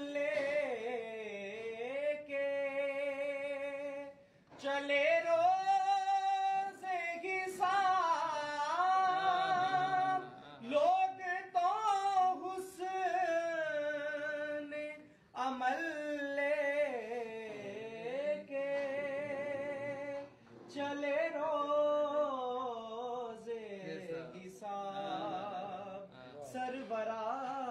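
Unaccompanied devotional singing, a naat: a solo voice sings long phrases of held, wavering notes, with short breaths between phrases.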